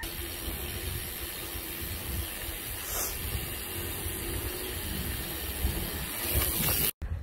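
Steady rushing of wind on the microphone of a bicycle rider, with a low rumble and a faint steady hum under it. It cuts off suddenly near the end.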